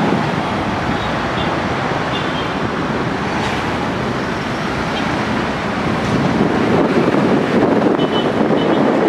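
Road traffic on a busy city street: a steady wash of engine and tyre noise from passing minibus taxis, cars and motorcycles, growing a little louder about six seconds in.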